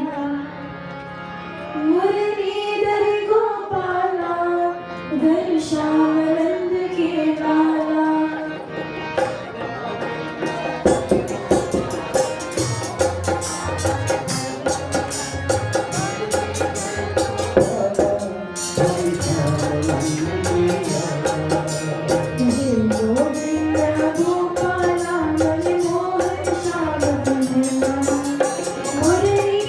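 Devotional Krishna bhajan played live: a woman sings with harmonium, dholak hand drum and dhantal. About nine seconds in the voice stops for a harmonium interlude over busy drumming and dhantal strikes, and the singing comes back in the last several seconds.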